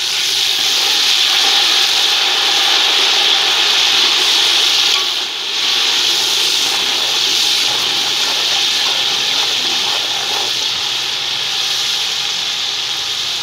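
Water poured into hot ghee with browned onions and masala in a large aluminium pot, setting off a sudden, loud, steady sizzle that dips briefly about five seconds in and eases slightly toward the end.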